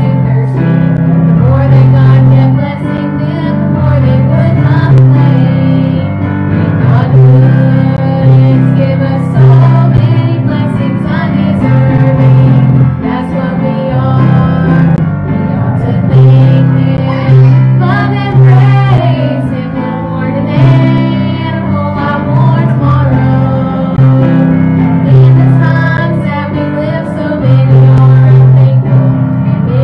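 Two women singing an old church song together over instrumental accompaniment with sustained low notes.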